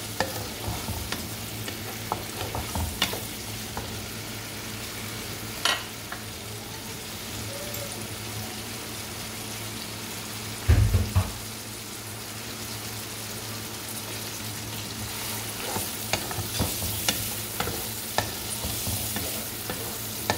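Sliced onions sizzling in hot oil in a karahi, just added and beginning to fry, while a wooden spatula stirs them with scrapes and taps against the pan. One dull thump comes a little after halfway.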